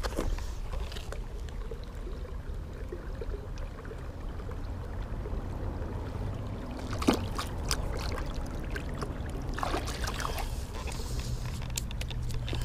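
Small creek water running and trickling over a steady low rumble, with a few sharp clicks about seven seconds in and a short burst of noise about ten seconds in.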